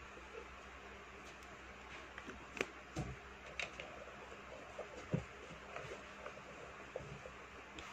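Scattered light clicks and taps of small makeup items, lipstick tubes among them, being handled and rummaged in a fabric cosmetic pouch.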